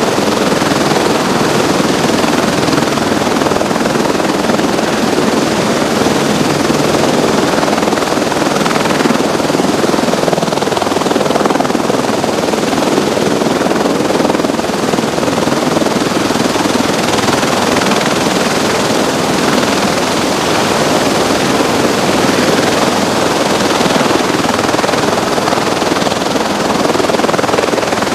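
Rotor and turbine noise of an MV-22 Osprey tiltrotor turning its proprotors on deck together with a large helicopter lifting off and hovering close by: a loud, steady whir with rapid blade chop.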